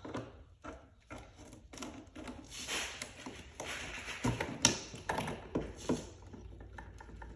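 Irregular clicks, taps and rustling of hands and hand tools working on parts in a car's engine bay, with one sharper click about four and a half seconds in.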